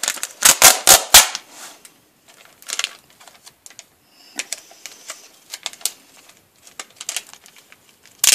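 Clear plastic wrap and a small plastic Ziploc bag crackling as the bag is peeled off a wrapped cardboard box and handled. A quick run of sharp crackles in the first second gives way to quieter, scattered crinkles.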